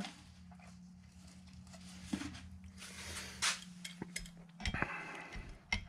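A few scattered, light metallic clinks and taps as an adjustable crescent wrench is handled and fitted onto the threaded end cap of an air rifle's carbon fibre barrel tensioner.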